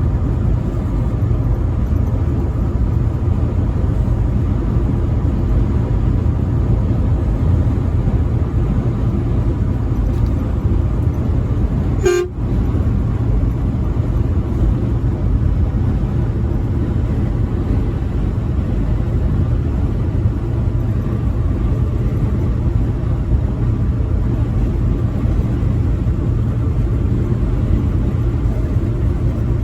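Semi-truck running at highway speed: a steady low drone of engine and road noise, with a brief dropout about twelve seconds in.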